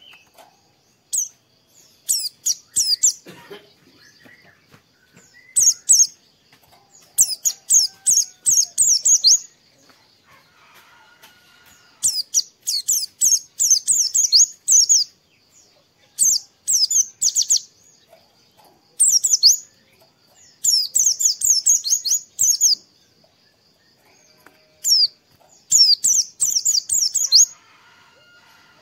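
White-eye (pleci) song: bursts of rapid, high twittering a second or two long, repeated over and over with short pauses. A faint steady high tone runs underneath.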